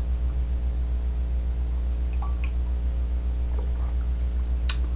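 Steady low electrical hum with a stack of evenly spaced overtones. Over it are a few faint small sounds of whiskey being sipped from a mug and swallowed.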